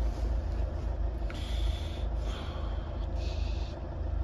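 Bedford lorry's diesel engine turning over slowly on its starter motor without firing. It is cranking on jump leads but not very fast, and no fuel is coming through the lift pump.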